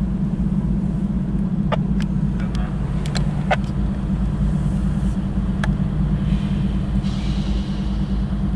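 Norfolk Southern diesel locomotives rumbling steadily, heard through the closed window of a car, with scattered taps of raindrops on the car. A faint hiss comes in near the end.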